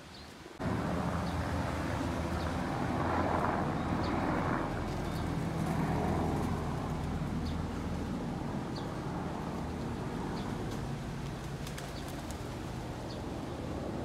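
A motor running steadily, a low hum that comes in suddenly about half a second in and holds, with short faint high chirps about once a second over it.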